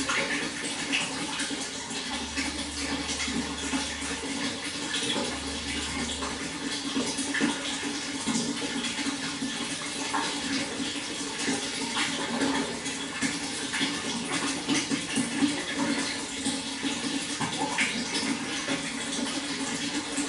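Water flowing steadily: a continuous rush with many small splashes throughout.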